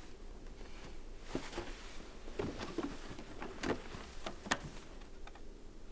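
Cardboard gift box being handled and opened: a scattering of short light taps, scrapes and rustles as the lid is lifted.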